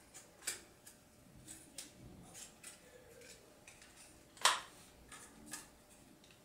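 Scattered light plastic clicks and knocks as the folding arms of an SJRC F11S drone are swung closed by hand, the sharpest click about four and a half seconds in.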